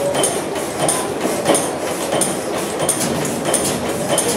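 Antique Deutz horizontal stationary gas engine with a crosshead, running slowly. Its moving parts clack in an even rhythm about one and a half times a second over a steady mechanical clatter.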